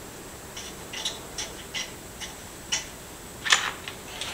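Light, scattered metallic clicks and taps of steel lug nuts being handled at a wheel hub, ready to be threaded onto a newly fitted wheel stud; the clicks come irregularly, with a slightly louder clink about three and a half seconds in.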